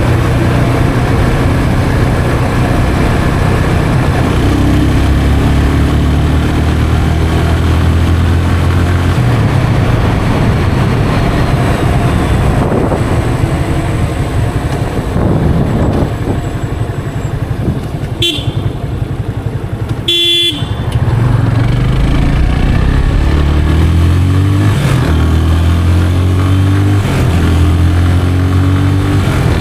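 Yamaha FZ 25's 249cc single-cylinder engine running on the move, easing off in the middle and then pulling again, its pitch climbing in steps as it accelerates. Two short horn beeps sound just past the middle.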